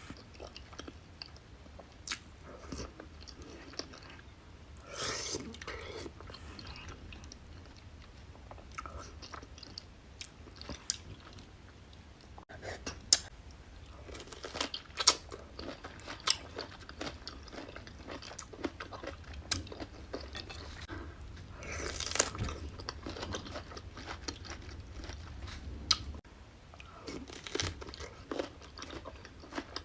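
Close-miked eating of a seafood boil: chewing and biting, with crunching and many sharp clicks and smacks, denser in a few bursts.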